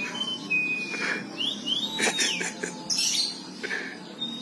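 Domestic canary singing an unusual song of long whistled notes that slide up and down, mixed with short harsh buzzy bursts, a song put down to what it picked up from mingling with other birds.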